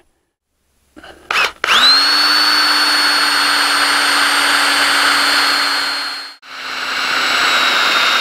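Power drill driving screws into a galvanized steel purlin pipe. The motor spins up quickly about two seconds in and runs steadily for several seconds, stops briefly, then runs again at a slightly lower pitch.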